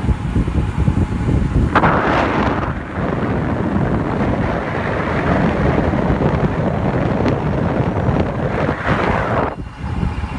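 Wind buffeting the microphone of a camera carried on a fast bicycle descent: a heavy, gusting rumble, with a brighter rush of air joining in about two seconds in and dropping away shortly before the end.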